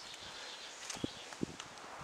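Footsteps of a walker on grass and stones: two soft steps a second or so in, over faint wind.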